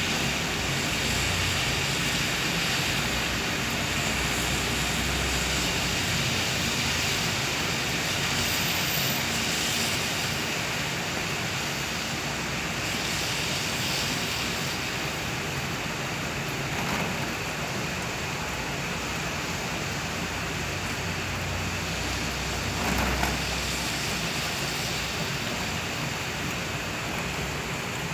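Heavy rain pouring steadily onto a wet street. A vehicle runs by on the wet road with a low rumble during the first few seconds.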